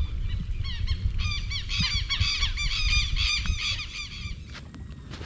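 A flock of birds calling, many short repeated calls overlapping, building about a second in and dying away after about four seconds, over a low rumble.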